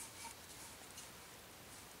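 Faint rustling and a few light ticks as hands turn and grip a hand-carved wooden maul.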